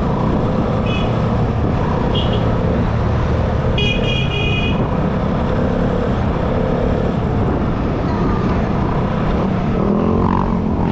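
Scooter riding along with a steady run of engine, wind and road noise, broken by vehicle horn toots: two short beeps about 1 and 2 seconds in, then a longer one of about a second near the 4-second mark.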